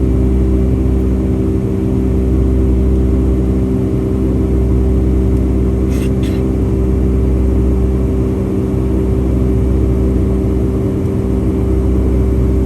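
Boeing 757-200's Pratt & Whitney PW2000 turbofans heard from inside the passenger cabin: a loud, steady drone of several held tones over a deep rumble, with two brief faint high ticks about halfway through.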